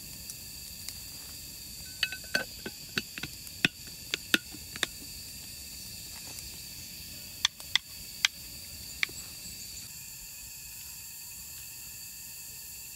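Steady, high-pitched insect chorus, with sharp crackles and pops from a wood campfire: a quick run about two to five seconds in and a few more around eight seconds.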